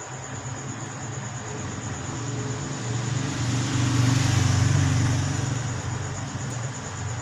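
A motor vehicle passing, its low engine hum rising to a peak about four seconds in and then fading.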